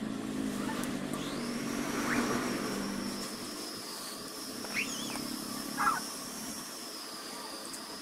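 Steady high-pitched whine that sets in about a second in, over a low hum that fades away, with two short chirps in the middle. The soft scratching of a coloured pencil on paper may be mixed in.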